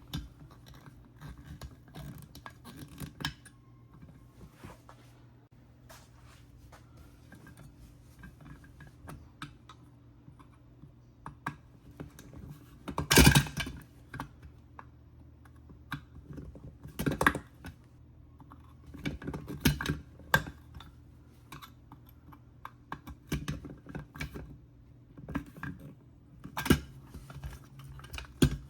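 Irregular clicks, taps and knocks of small hard objects being handled, the loudest about halfway through, over a steady low hum.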